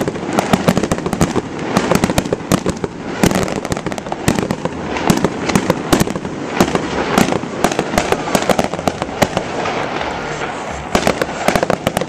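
Fireworks going off in a dense, uneven string of sharp crackles and bangs, one report hard on another.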